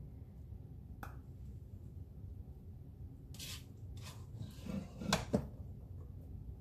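A spaghetti server clinking and scraping against a cooking pot as cooked spaghetti noodles are lifted out, a few scattered clicks with the loudest pair of knocks about five seconds in.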